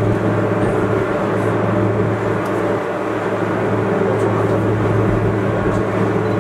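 Gornergrat Bahn electric cog-railway train climbing, heard from inside the cab: a steady low hum from the traction motors and gearing over the rumble of the running gear, holding one pitch.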